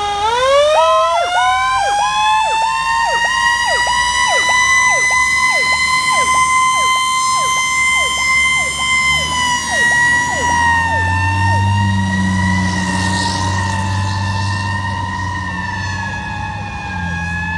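1997 Pierce Dash fire engine's mechanical siren winding up and holding a steady high wail, with an electronic siren yelping rapidly over it. A low rumble joins about eleven seconds in, and the sirens slowly fade as the engine moves off.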